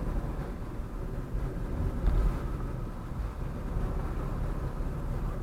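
Car interior road noise while driving: a steady low rumble of engine and tyres, with a slight swell about two seconds in.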